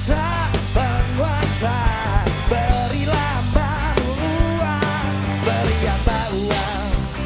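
A man singing a song in a live band with acoustic guitar and a drum kit, his voice wavering with vibrato over steady drum hits.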